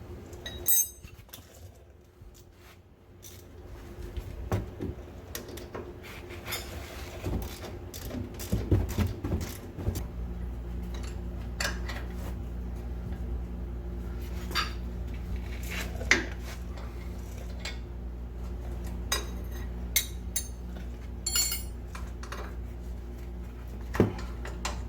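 Metal hand tools and parts clinking and knocking in scattered sharp strikes during work on a pickup's upper control arm. A steady low hum from some running machine starts about ten seconds in and carries on under the clinks.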